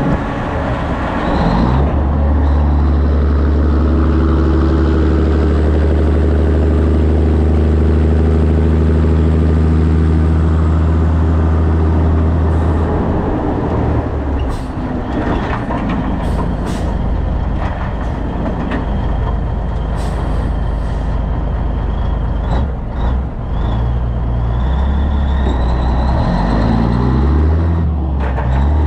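Diesel engine of a Peterbilt 362 cabover semi, with road noise, heard from the load on its trailer. The engine runs steadily for about ten seconds, then the sound changes with a string of sharp clicks and rattles as the rig slows to a stop at an intersection, and the engine pulls away again near the end, rising in pitch.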